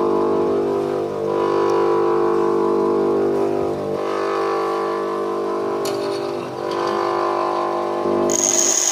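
Bench grinder running with a steady, multi-pitched motor hum that dips slightly a few times. Near the end the low hum drops away abruptly and a high steady whine takes over.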